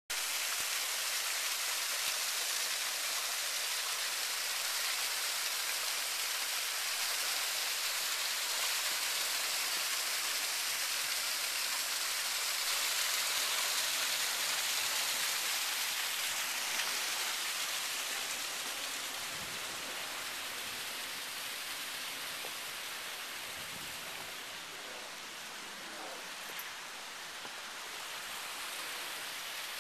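Water from a landscaped garden waterfall splashing steadily over rocks, a continuous rushing hiss that eases slightly about two-thirds of the way through.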